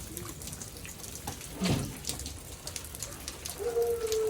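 Rain falling after a hailstorm, with water running off and dripping in scattered sharp ticks. A brief low sound comes a little under two seconds in, and a steady held tone starts near the end.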